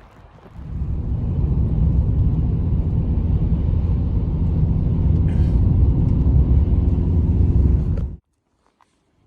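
Strong wind buffeting the microphone: a loud, steady low rumble that cuts off abruptly about eight seconds in.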